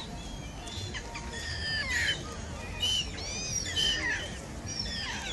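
A flock of gulls calling over water: many short, high, arching calls that overlap, busiest in the middle, over a low steady rumble.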